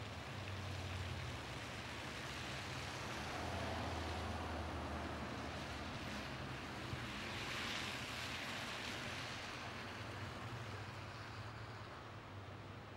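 Cars and vans driving slowly through shallow, silty liquefaction floodwater: tyres splashing and sloshing over a low engine hum. The splashing swells about halfway through as a vehicle passes closest.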